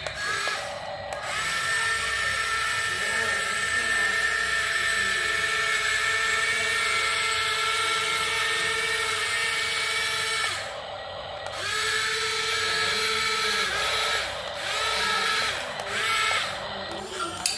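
Small electric gear motors of a toy remote-control excavator whining steadily as it swings and moves its arm. The whine breaks off for about a second two-thirds of the way through, then runs in shorter spurts near the end.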